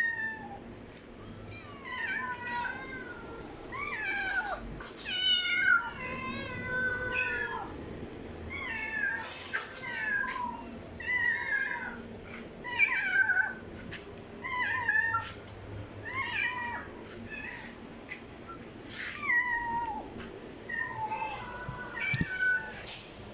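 Kittens meowing over and over: short, high calls about one or two a second, at different pitches and sometimes overlapping.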